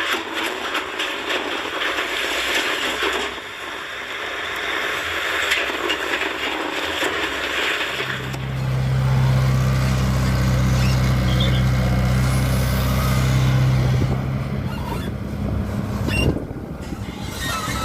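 Excavator working: a noisy clattering for the first half, then its diesel engine running with a strong, steady deep hum from about halfway on, broken by a single knock near the end.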